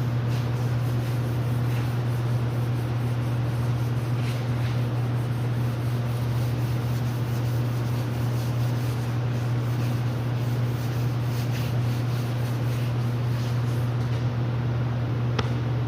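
Sandpaper rubbing over primed car bodywork during wet sanding, over a steady low hum.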